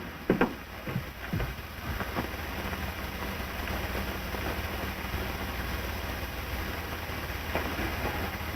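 Hiss and crackle of an early optical sound-film soundtrack, with a few soft clicks in the first second or so and a faint steady low hum.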